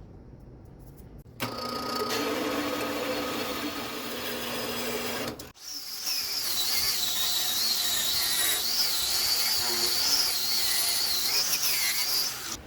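A power tool runs in a knife-making workshop: its motor starts about a second and a half in, cuts out for a moment near the middle, then runs again with a high, wavering whine that stops just before the end.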